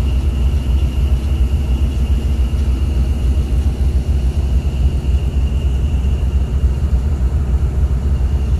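Diesel engine of a harbour boat rumbling steadily underway, heard on deck, with a faint steady high whine over the low drone.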